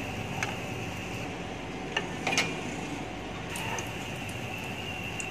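Chicken-and-potato kababs sizzling in hot oil in a pan, with a few sharp clicks of a metal spatula against the pan, the loudest about two and a half seconds in.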